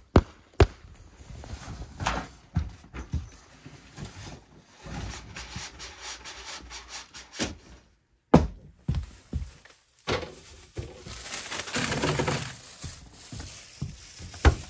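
Handling and unloading gear: a series of thumps and knocks as bags and plastic bins are lifted and set down, with two sharp knocks at the start. About 10 to 13 s in there is a longer stretch of rustling and clatter as things are put away.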